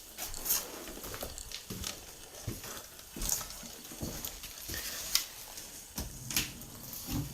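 Irregular crunching and rustling of debris, with light thuds roughly every second, like slow footsteps over a littered floor.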